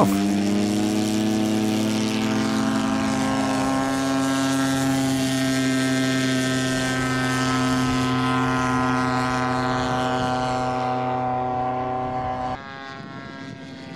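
Propeller-driven gas engine of a 1/3-scale RC model plane running at full throttle through the takeoff run and climb-out. Its pitch rises quickly at the start and creeps up a little more over the first few seconds, then holds steady. Near the end it suddenly becomes fainter.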